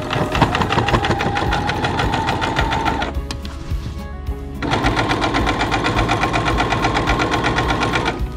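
Electric sewing machine stitching a straight seam through folded fabric, with a fast even needle rhythm. It stops about three seconds in and starts up again about a second and a half later, running on until near the end.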